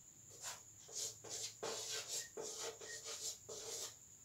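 Chalk writing on a chalkboard: a run of short, faint scratching strokes.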